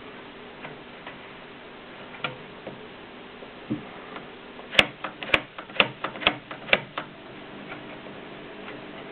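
Mignon index typewriter being typed on, its mechanism clicking with each character: a few faint clicks, then a quick run of about eight sharp clicks near the middle, then faint clicks again.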